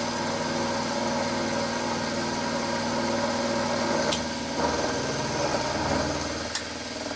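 Milling machine running with the end mill cutting a slot in a metal connecting-rod blank under the table power feed: a steady mechanical hum of motor and cutting. The hum's low tones shift a little over halfway through, and there are a couple of faint clicks.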